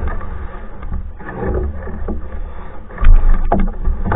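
Hornbeck New Trick solo canoe being paddled: paddle strokes and water sounds over a steady low rumble, with a few sharp knocks about three seconds in, the loudest moment.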